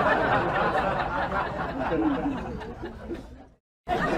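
Indistinct hubbub of voices with some chuckling, fading and then cutting off abruptly to a brief silence about three and a half seconds in.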